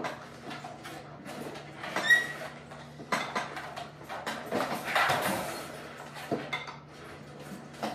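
Leg extension attachment of a rod-resistance home gym working through repetitions, with scattered knocks and clicks and a short squeak about two seconds in.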